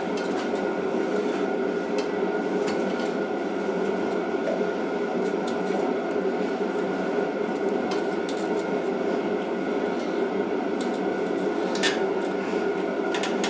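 Steady machine hum with a constant high whine throughout, and a few light knocks and rattles as a lawn edger is tipped and turned on a wooden workbench.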